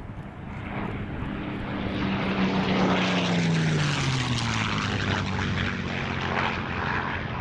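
P-51D Mustang's Packard Merlin V12 engine and propeller on a low flyby. The engine note builds up, then drops in pitch as the aircraft passes about three seconds in, and stays loud as it pulls away.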